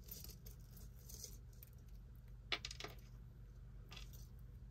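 Faint metallic clicks of costume jewelry handled by hand, a filigree leaf earring and a wire hoop earring hooked together being worked apart. The sharpest click comes about halfway through, with a second soon after.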